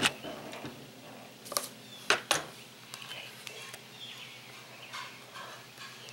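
Small birds chirping now and then, with a few sharp clicks: a quick double click about two seconds in is the loudest.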